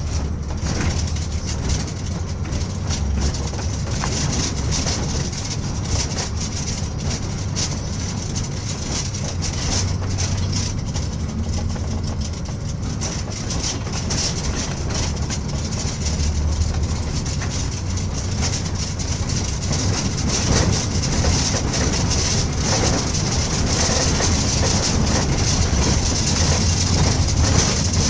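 New Jersey Transit bus driving into the Lincoln Tunnel: a steady rumble of engine and tyre noise with a hiss over it, growing a little louder in the second half.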